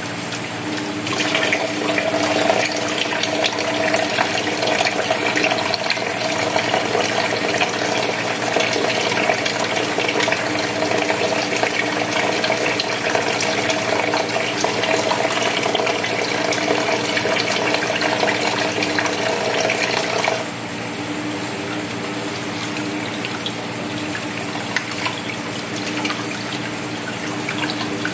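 Tap water running into a sink during handwashing. The running water starts about a second in and drops off suddenly about twenty seconds in.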